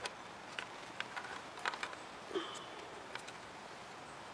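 Scattered light clicks and taps of small plastic and metal parts being handled during PS90 reassembly, with a quick cluster of clicks about a second and a half in.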